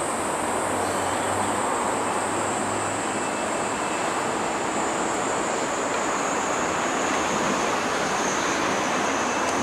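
Steady wash of road traffic from an elevated expressway, an even hum without distinct events, with a thin, steady high-pitched hiss above it.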